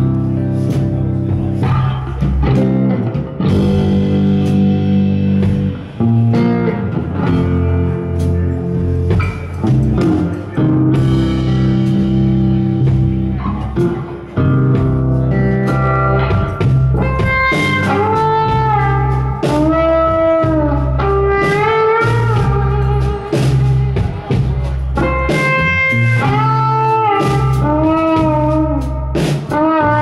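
Live instrumental blues on a 1959 Fender Telecaster electric guitar, over electric bass and drums. From a little past halfway, the guitar plays slow bent notes that rise and fall in pitch.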